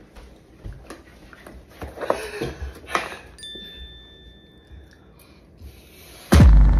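Plastic fork clicking and scraping in a plastic takeout container, with chewing, as a man eats. Near the end a sudden loud boom, the loudest thing here, leaves a low rumble that carries on.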